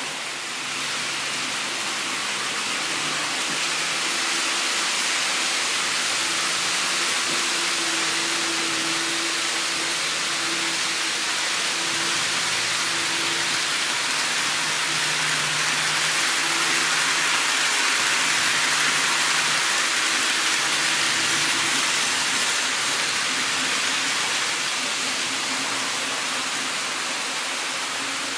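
N scale model train running on the layout track: a steady rushing hiss of wheels on rail, with a faint low motor hum that wavers in pitch.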